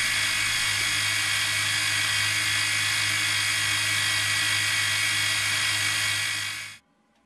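Small bench milling machine running, its spindle turning at speed with a steady hum and a high whine. The sound cuts off suddenly near the end.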